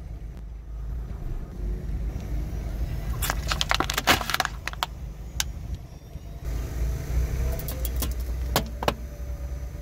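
A car tyre rolling slowly over a small plastic bottle of liquid and a plastic toy doll on asphalt, crushing them with a burst of crackling and cracking about three to four seconds in, over the car's steady low rumble. A few single sharp ticks come near the end.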